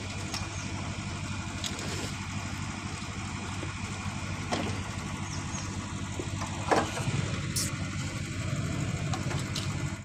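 Motorcycle engine idling steadily, with a few light clicks and a sharp knock about seven seconds in.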